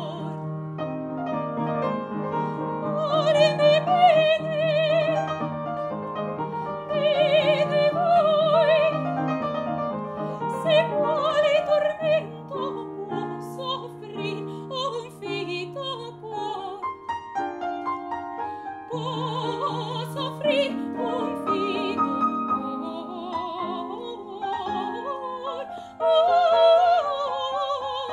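Female classical singer performing an Italian opera aria with strong vibrato, accompanied by an upright piano; the piano carries on alone in short passages between sung phrases.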